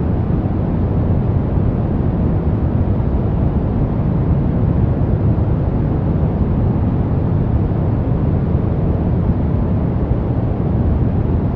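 Steady brown noise: an even, deep rumbling hiss, strongest in the low end and fading toward the highs, without change.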